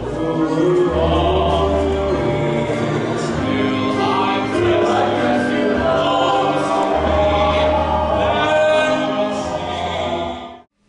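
A group of young male voices singing a musical-theatre number together, over instrumental accompaniment with sustained low bass notes. The music cuts off abruptly near the end.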